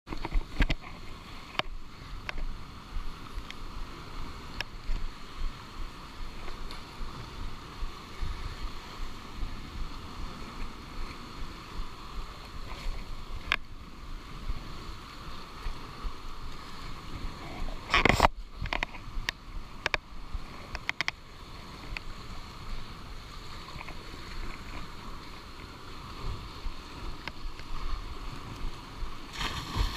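Wind and sea on a body-worn action camera, a steady wash, with scattered knocks and scrapes of hands and feet on rough rock. One much louder knock comes about 18 seconds in.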